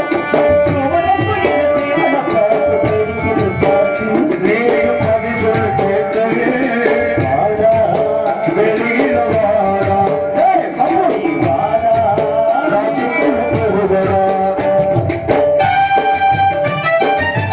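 Live drama accompaniment: tabla playing a steady rhythm of sharp, evenly repeating strokes under a melody whose pitch slides and wavers.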